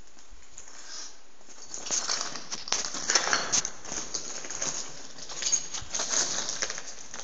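Footsteps scuffing and crunching at an irregular pace, with rustling, starting about two seconds in.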